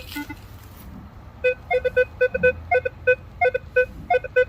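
Metal detector target tone: a quick run of short, mid-pitched beeps, about four or five a second in small groups, starting about a second and a half in, as the search coil sweeps back and forth over a coin lying among iron pieces.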